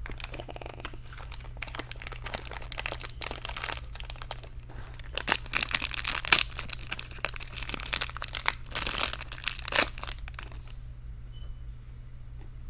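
Crinkly plastic wrapper of a small blind-bag toy being crumpled and torn open close to the microphone, in rapid rustling bursts that stop about two seconds before the end.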